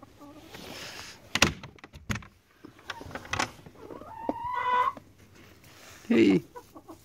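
Wooden chicken coop door being handled and opened: a few sharp knocks and clatters, then a squeak lasting about a second, about four seconds in.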